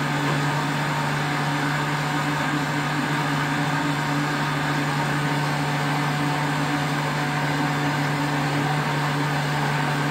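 A steady, unchanging mechanical hum with a hiss over it.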